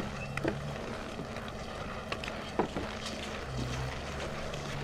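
An engine running steadily with a low hum that fades partway and comes back strongly about three and a half seconds in, with a few light knocks.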